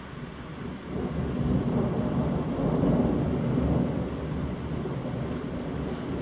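Rolling thunder rumbling low, swelling about a second in and easing off after about four seconds, over steady heavy rain.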